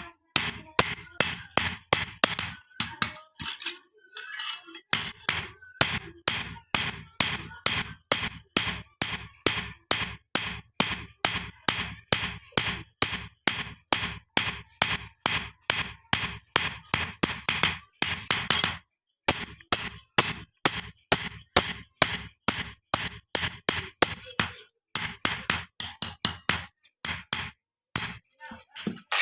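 A blacksmith's hand hammer striking steel on an anvil in a steady run of blows, about three a second, forging a rod into a sickle. The blows stop briefly a few times.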